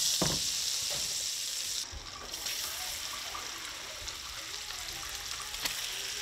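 Pieces of striped bass sizzling in hot butter and olive oil in a frying pan, with small ticks and pops. The sizzle is louder for the first two seconds, then settles to a softer, steady hiss.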